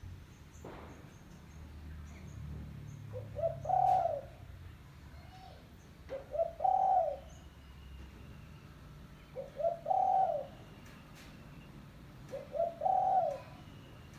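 Spotted dove cooing: four phrases about three seconds apart, each a couple of short notes followed by a longer coo. It is the lure call used to draw in wild doves.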